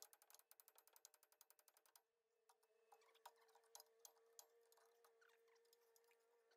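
Faint rapid mechanical clicking, about ten clicks a second, that breaks off about two seconds in and gives way to scattered single clicks, over a faint steady tone.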